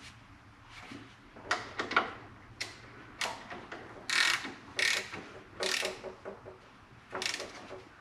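Hand socket ratchet clicking in a series of short strokes as it turns a bolt on the motorcycle's front fork, with pauses between strokes.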